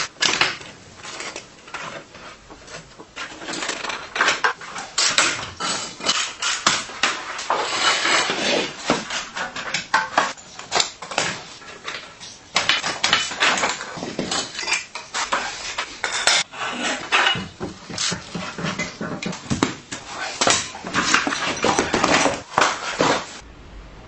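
Metal clinking, clattering and scraping, like hand tools and metal parts being worked on a bench. It comes in quick, irregular strokes and stops abruptly near the end.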